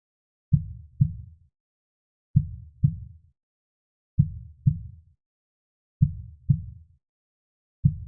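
Slow heartbeat, each beat a low double thump (lub-dub) with silence between, about one beat every two seconds: four full beats, and a fifth starts right at the end.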